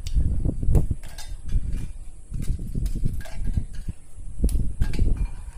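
Dry biscuits snapped by hand and the pieces dropping into a steel mixer-grinder jar: irregular sharp cracks and light clatters over dull knocks of handling.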